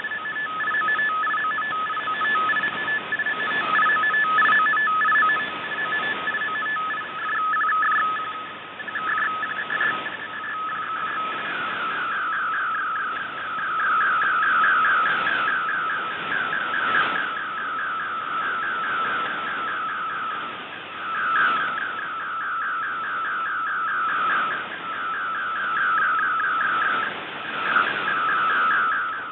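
MFSK32 image transmission received off shortwave: a warbling data signal. For the first third it is choppy keying between two steady tones; after that it turns into rapid repeating sweeps in pitch as the picture is sent. Shortwave hiss and occasional static crashes run underneath.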